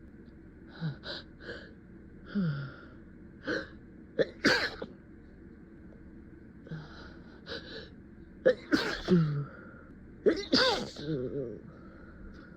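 A person's sneeze fit while trying to hold the sneezes back. Short catching breaths and gasps build up to three loud sneezes, about four and a half, nine and eleven seconds in, the last two with a voiced cry.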